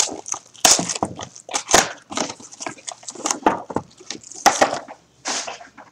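A cardboard trading-card hobby box being opened by hand and its two mini boxes pulled out and set on a wooden desk: a run of irregular scrapes, rustles and light knocks.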